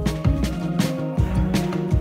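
Background music with a steady drum beat.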